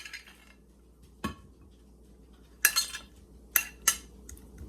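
Cutlery clinking and knocking against a dish as food is laid onto it: one dull knock about a second in, then a few sharp clinks about three to four seconds in.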